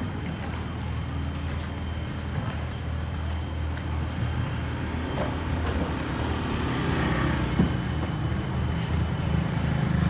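Small motor scooter running past close by, its engine and tyre noise swelling a little after the middle, over a steady low rumble of street traffic.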